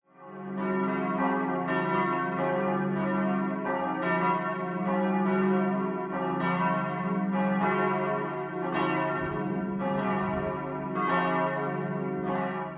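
Church bells pealing: several bells struck in turn, about two strokes a second, their ringing tones overlapping and fading in over the first second.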